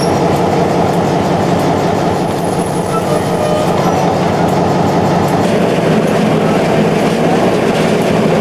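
EMD SW1500 switcher locomotive's 12-cylinder diesel engine running, heard from on board as a steady, loud drone, with the train rolling on the rails beneath.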